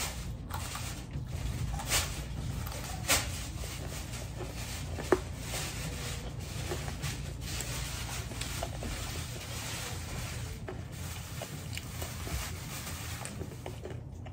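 A child chewing crunchy fried dumplings: scattered short crisp crunches, a few louder ones about two, three and five seconds in, over a steady low hum.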